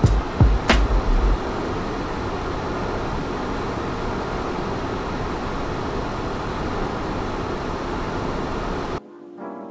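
Steady rushing cockpit noise of a Dassault Falcon 900 business jet in flight, airflow and engine noise together, with a few low thumps in the first second or so. It cuts off abruptly near the end as music comes in.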